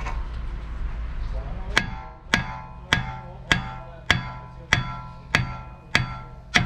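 Hammer blows on the steel lower control arm of a Nissan Rogue's front suspension, knocking the ball joint up into the steering knuckle. About nine evenly paced strikes start about two seconds in, one every 0.6 s or so, and each rings briefly.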